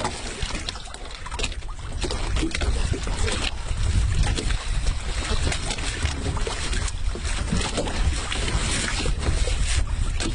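Wind buffeting the microphone aboard a fishing boat at sea, over a steady low rumble with gusty surges throughout.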